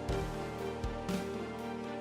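Background music: sustained instrumental tones over a soft, steady beat about twice a second.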